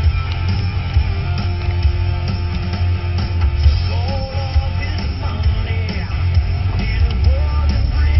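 Loud rock music with a singing voice over a heavy, steady bass.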